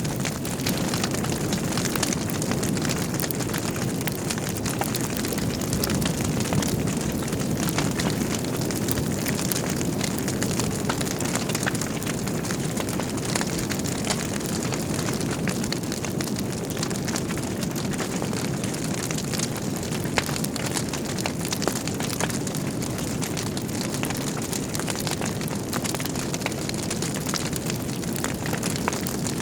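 Log fire burning in a fireplace: a steady low rush of flames with frequent small crackles and pops throughout.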